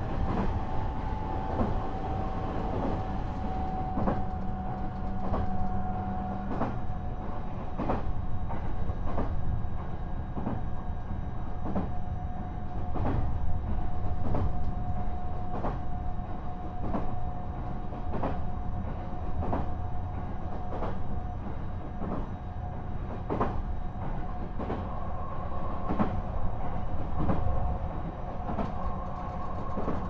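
Running sound of a JR East E129-series electric train, motor car KuMoHa E128-114, at speed. A steady rumble carries a constant whine, with rail-joint clicks about once or twice a second.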